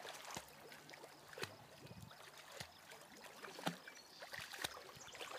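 Faint, irregular soft splashes and water lapping as a Scottish Terrier dog-paddles through shallow creek water.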